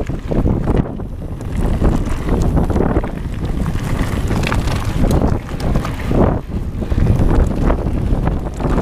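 Wind buffeting a GoPro action camera's microphone while a mountain bike rolls fast down a gravel trail, with a dense low rumble and rapid crunches and rattles from the tyres and bike over loose stones.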